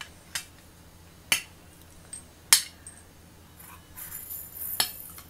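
Metal spoon and fork on a plate: three sharp clinks in the first half, then scraping with a light ring near the end.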